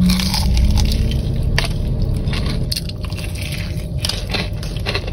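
Close-up eating sounds: biting into and chewing fast food (shrimp burger, fries, crispy fried chicken), wet squishing chews with short crisp crackles scattered through.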